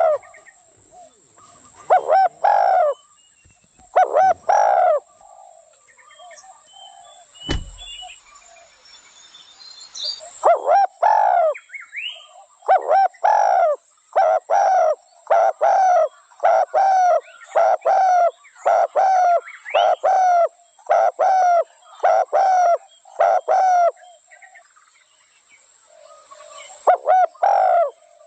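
Spotted dove cooing: short hoarse coos repeated, a few at first, then a long steady series of about one a second. A single sharp click about seven seconds in.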